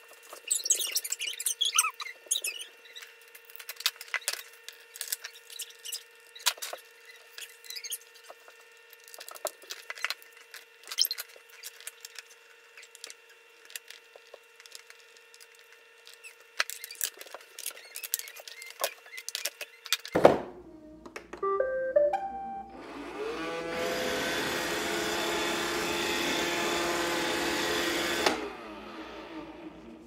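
Clicks and knocks of hard plastic parts and a screwdriver as an iRobot Roomba robot vacuum is reassembled. About 20 s in, a few short beeping tones sound, then the Roomba's vacuum motor and brushes start with a rising whine, run steadily for about five seconds, and stop.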